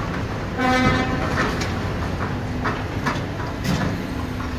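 High-reach demolition excavator working rubble with its hydraulic crusher jaws: the engine runs steadily under repeated crunches and clatters of broken brick and concrete. A short honking tone sounds about half a second in.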